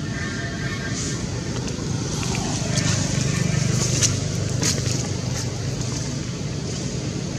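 Low, steady hum of a motor vehicle's engine going by, swelling in the middle, with a few sharp clicks around the loudest part.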